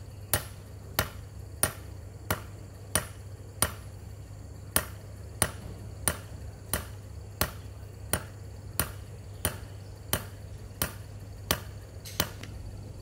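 Hand hammer striking something held down in a hole in the soil with steady, evenly spaced blows, about three every two seconds. The blows stop shortly before the end.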